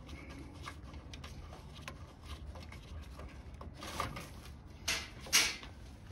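Gloved hands handling bolts on a car's metal radiator frame support: scattered light clicks and rustles, with three louder brief scraping rustles about four to five and a half seconds in.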